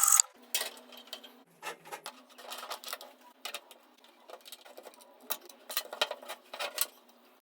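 Sanding by an angle grinder rigged as a belt sander cuts off just after the start. Scattered light clicks and taps follow over a faint steady hum.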